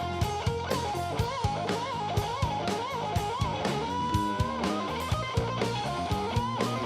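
A blues-rock band playing: an electric lead guitar bending and wavering its notes over bass guitar and a steady drum-kit beat.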